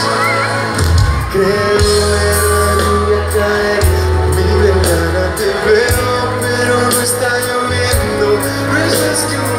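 A live pop band playing, heard from among the concert crowd, with voices carried over the music.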